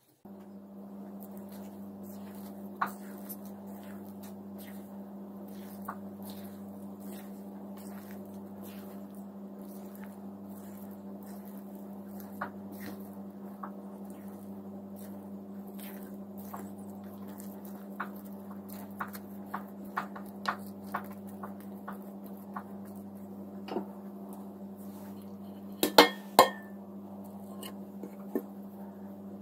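Spatula working a sticky yeast dough in a bowl: scattered light clicks and knocks of the utensil against the bowl over a steady low hum. About 26 seconds in, two loud ringing clinks of dishware as the bowl is turned over onto a plate.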